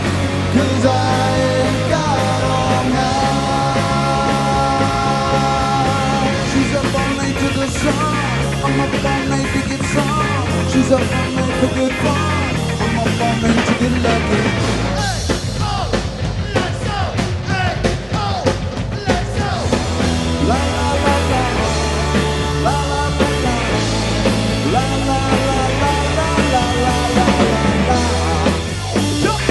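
Live rock band playing: a male lead singer over electric guitar, bass guitar and drum kit.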